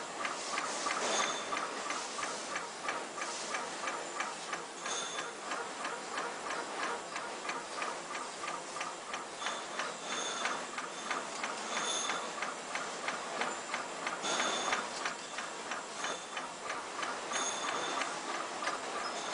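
PSL2080 ultrasonic label cutting machine running, cutting and folding label tape with a steady, fast, even clicking. Short high-pitched tones come in now and then over the clicking.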